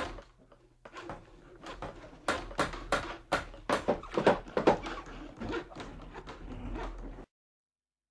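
A rapid, irregular series of sharp knocks and taps, about twenty strikes, loudest in the middle, stopping abruptly near the end.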